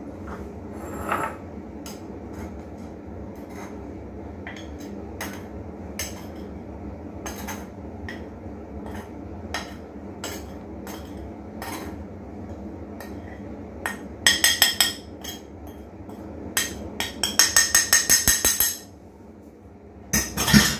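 Metal spoon clinking and scraping against a ceramic plate and a glass bowl as spice powders are spooned from the plate into the bowl. Scattered light clinks, then near the end two quick runs of rapid clinking.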